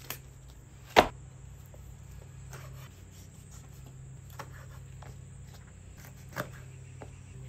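Chef's knife cutting raw chicken wings on a wooden cutting board: a few sharp knocks of the blade on the board, the loudest about a second in, over a steady low hum.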